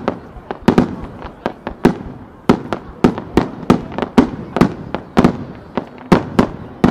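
Starmine fireworks barrage: aerial shells bursting in rapid succession, a sharp bang about three to four times a second.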